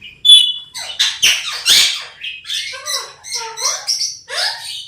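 Pet parrot calling: a few loud, harsh squawks in the first two seconds, then a run of short chirping calls repeated about twice a second.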